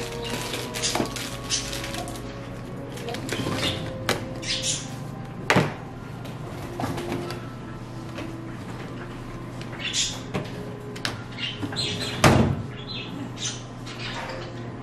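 Things being handled and set down on a wooden desktop: scattered knocks and rustles, the loudest a thud about twelve seconds in.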